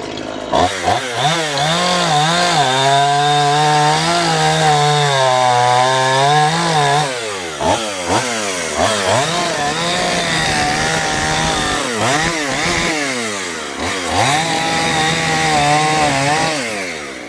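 Dnipro 42 petrol chainsaw running at high revs while cutting poplar with a dull chain, its engine pitch sagging under load and climbing back again. Quick rev swings come in the middle and again shortly before it drops back near the end.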